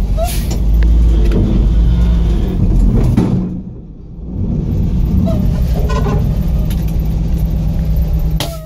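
1973 Diamond Reo dump truck's gasoline straight-six engine running as the truck drives, heard from inside the cab. The engine note falls away about three and a half seconds in, comes back up about a second later, and dips again near the end.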